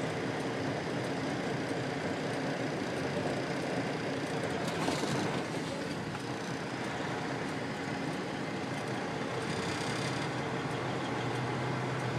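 Semi truck's diesel engine running steadily as the truck moves slowly, heard from the cab. A brief louder noise comes about five seconds in, and a short hiss near ten seconds.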